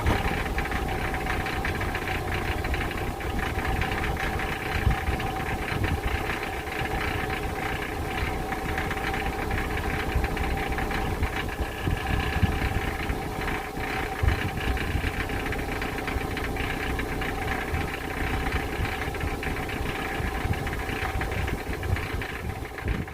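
Subaru Impreza WRX STI (GVB) turbocharged flat-four idling, with an irregular rattle from the exhaust: the original catalytic converter's honeycomb core has deteriorated and worked loose from the shell's inner wall.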